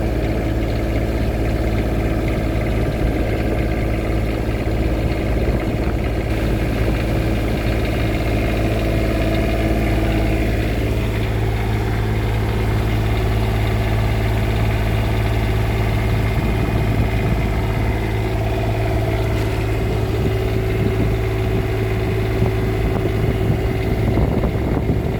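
Cummins Onan 7.5 kW Quiet Diesel generator's diesel engine running steadily just after starting, with its exhaust system and muffler pipe not yet connected.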